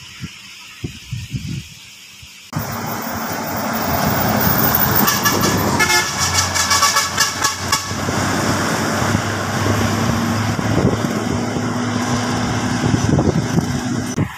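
Bus engine and road noise from a bus passing close by, coming in suddenly after a quieter first couple of seconds. About six seconds in, a horn sounds for roughly two seconds over the engine.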